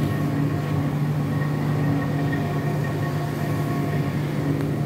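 Steady machine hum with a low drone and a few fainter high tones, unchanging throughout.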